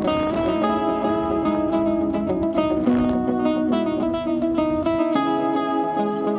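Background music played on a plucked string instrument, guitar-like, picking a steady run of notes. A low rumble sits underneath until it cuts out about five seconds in.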